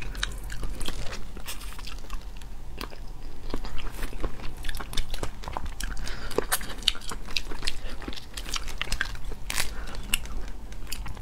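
Close-miked eating of boiled shellfish: an irregular run of small cracks and snaps as the shells are bitten and pulled apart, with wet chewing and sucking of the meat.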